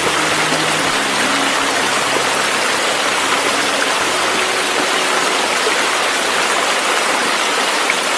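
Steady, even hiss of rushing water, like rain or a stream, used as a masking sound track. Faint tones of music trail off in the first second or two.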